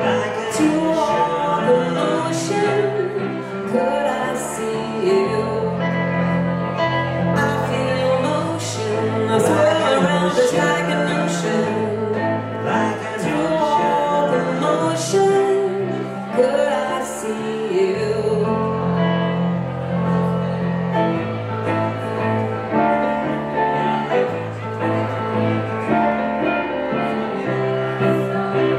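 Live band playing, with a hollow-body archtop electric guitar and a stage keyboard over a low bass line that changes notes about every second.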